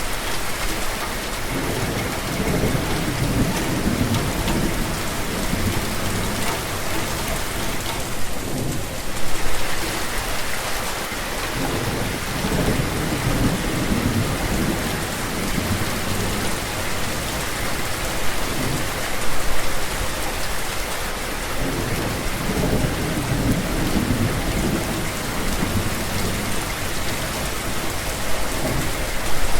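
Steady, dense rainfall hissing without a break, with low rolling thunder rumbling up and fading away several times.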